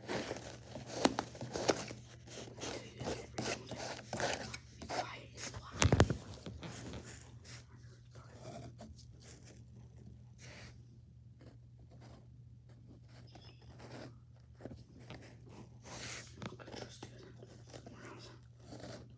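Handling noises: scraping, rustling and tapping, with a sharp loud knock about six seconds in, over a steady low electrical hum.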